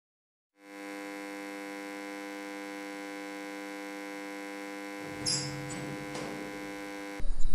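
A steady droning hum, one held pitch with many even overtones, fading in just after the start and cut off abruptly near the end. A few faint clicks and a short hiss come about five to six seconds in.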